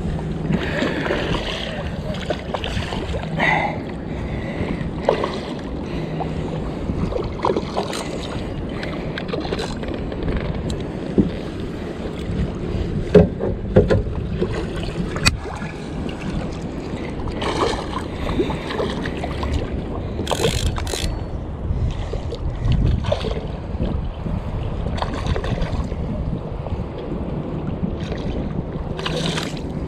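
A kayak on choppy water in the wind: wind buffeting the microphone and water slapping the hull, with scattered small knocks and clicks throughout.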